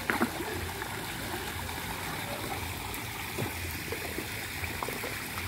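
Steady trickling water in a small recirculating tilapia pond, with a few faint splashes and slurps as tilapia take pellets at the surface.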